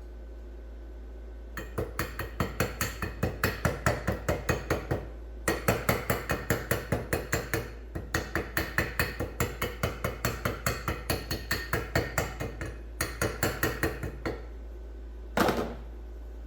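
Rapid hammering on metal: quick, evenly spaced ringing strikes at about five a second, in several runs with short pauses, ending with a final couple of hits.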